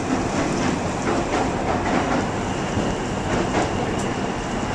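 Steady rumbling, rushing noise of a motor yacht under way, heard from its open deck: engine drone with water and wind noise.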